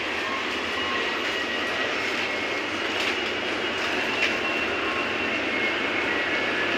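Steady background roar of a busy metro station concourse near an open exit, with no voices standing out.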